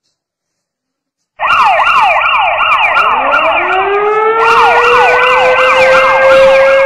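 Police siren, cutting in suddenly about a second and a half in: a fast yelp sweeping up and down about four times a second. About halfway through, a second siren tone joins it and winds steadily up in pitch.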